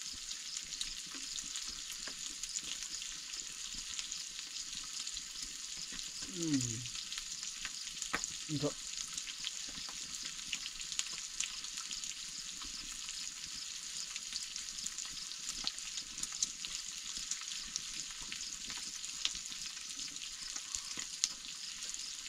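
Pieces of pork sizzling steadily in a pan over a wood fire, with small pops and crackles all through. A brief low murmur of a voice comes about six and a half seconds in.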